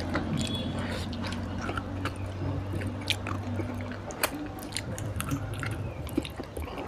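Close-miked eating of rice and curried meat by hand: wet chewing and biting with many sharp mouth clicks and smacks.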